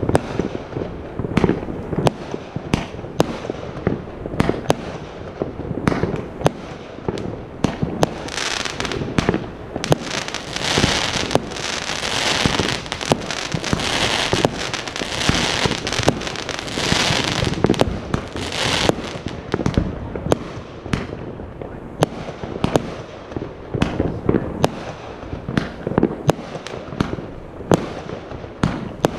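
Fireworks display: a long run of sharp bangs from bursting fireworks, irregular and closely spaced throughout. From about a third to two-thirds of the way through, a thick, steady hiss builds up under the bangs.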